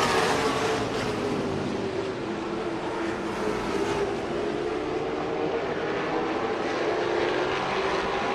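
A field of late-model stock cars running at racing speed around a short oval: a steady, loud drone of several engines whose pitch sags and then climbs again midway.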